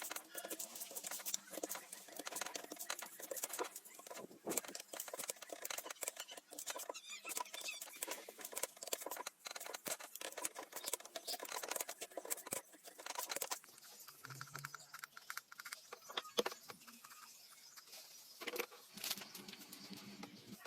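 Dense, rapid clicking and scraping of hand work on metal engine parts, quieter and sparser for a few seconds past the middle.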